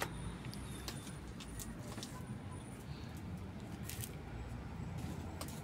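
Light scattered clicks and rustles of a small plastic scoop shaking worm castings onto potting soil, over steady low background noise.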